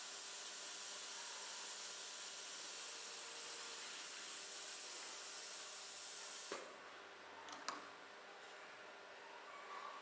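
A steady, high-pitched hiss from the AitalMAC WJ5 waterjet machine that cuts off abruptly about six and a half seconds in, followed by a few faint clicks.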